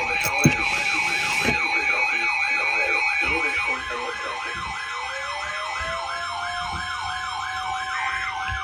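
Electronic siren in a fast yelp, rising and falling about three to four times a second over steady tones. A steady higher tone drops out about four seconds in, and the yelp fades near the end.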